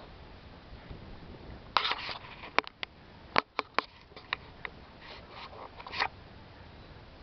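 A quick run of sharp clicks, about eight spread unevenly over two seconds, set between short rustles, much louder than the steady background.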